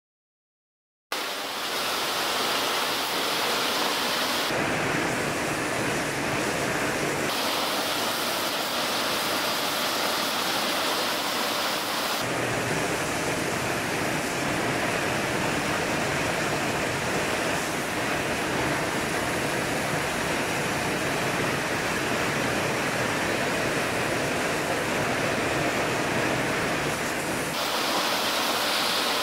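A water spray wand jetting onto a bare engine cylinder block, a steady rushing hiss that starts about a second in. Its tone shifts abruptly a few times.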